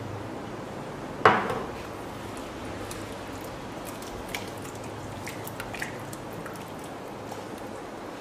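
A spatula knocks once against the rim of a stainless-steel saucepan with a short ring about a second in, while cilantro is scraped into the soup. A few light clinks and taps follow as a utensil stirs the pot, over a steady background hiss.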